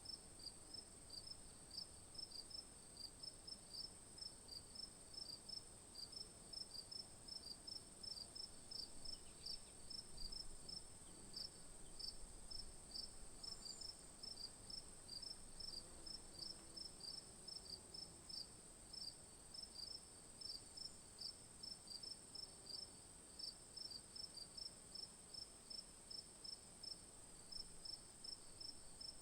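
Insects, cricket-like, chirping: faint, evenly spaced high chirps, about three a second, over a steady high-pitched trill.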